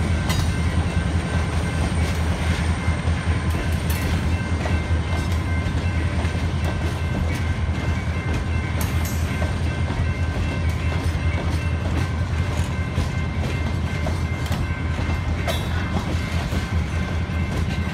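Freight cars rolling past close by: a steady low rumble of steel wheels on rail, with scattered clicks and knocks from the wheels and thin, steady high tones above.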